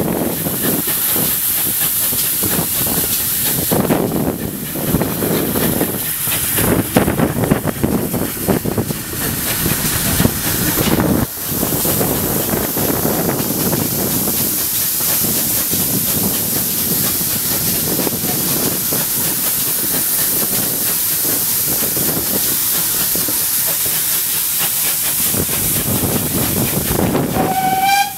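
Steam-hauled train running, heard from a carriage window: steady hiss and rush of steam, with wind on the microphone. Near the end the locomotive's steam whistle begins to sound, warning of the level crossing ahead.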